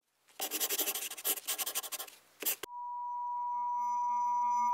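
Logo-intro sound effects: about two seconds of quick scratching strokes, like scribbling on paper, then a steady high electronic tone that comes in suddenly and slowly swells.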